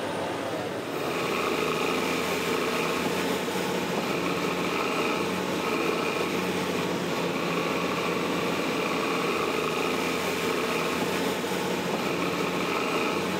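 Diesel engine of a Caterpillar hydraulic excavator running steadily as it digs, with a higher tone that comes and goes over it.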